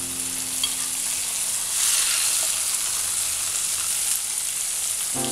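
Hot ghee with fried coconut pieces, cashews, raisins and sesame seeds poured from a small kadai onto hot payasam, sizzling and hissing. The hiss grows louder about two seconds in.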